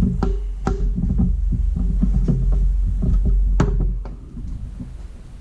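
Ball joint press being turned by hand with a wrench to press a new ball joint into an upper control arm: a run of sharp clicks and knocks about every half second over a low rumble, which eases off about four seconds in.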